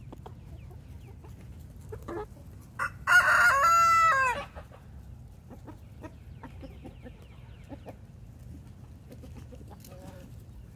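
A rooster crows once, loudly, about three seconds in, a call of about a second and a half that drops in pitch at the end. Around it the flock of chickens clucks softly with short calls.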